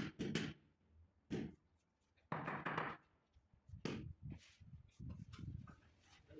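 White rubber mallet tapping a white marble stair tread to bed it level in its mortar: dull knocks, spaced irregularly with quiet gaps between.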